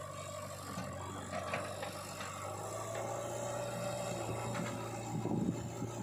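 Diesel engine of a backhoe loader or tractor running steadily, with rattling and clatter from the machinery a little after halfway.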